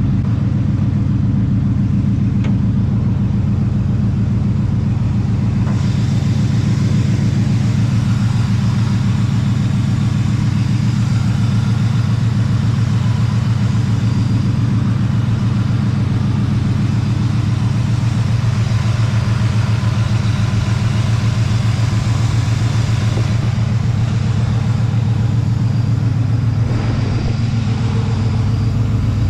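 Oldsmobile Cutlass Supreme's V8 engine running steadily with a low, even rumble.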